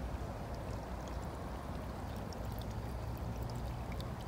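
Faint, steady trickle of water over a low, even background rumble, with a few tiny high ticks.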